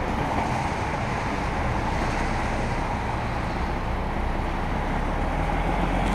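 DAF XF tractor unit's diesel engine running at low revs as the articulated truck creeps past at walking pace, a steady low rumble that grows louder near the end as the truck comes closer.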